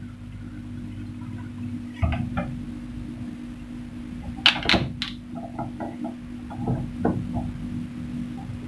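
A few knocks and clicks as a plastic cooking-oil jug is handled beside a wok, the loudest about four and a half seconds in, over a steady low hum.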